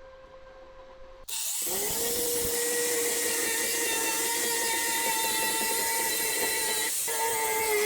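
Angle grinder starting up about a second in, its whine rising briefly and then holding steady as it grinds down steel weld seams, with a short dip in pitch and level near the end.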